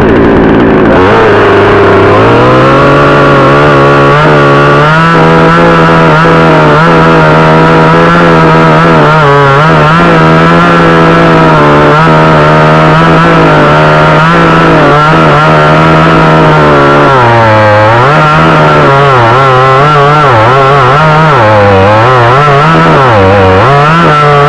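A 62cc gas chainsaw revs up to full speed about two seconds in to cut a carob branch and holds a steady high whine. Near the end the engine pitch dips and recovers several times.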